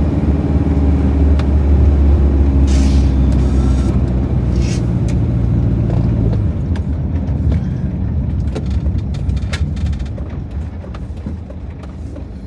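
Camper van's engine running at road speed, heard inside the cab, then easing off about six seconds in as the van slows down.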